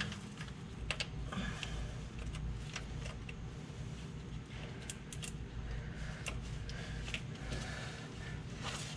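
Scattered light metallic clicks and clinks of a hand wrench being fitted to and worked on a bolt under a truck's engine, over a steady low hum.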